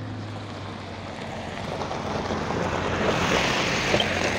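Many hooves of a flock of sheep shuffling and trampling over a dirt road, a dense crackle of small steps that grows louder about halfway through as the flock crowds close.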